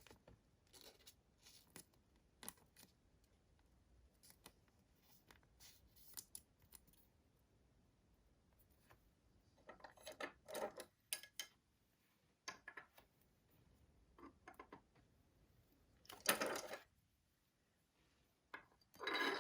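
Trading cards being handled: faint clicks and brushing of clear plastic cards sliding against each other, with louder short rustles about ten, sixteen and nineteen seconds in.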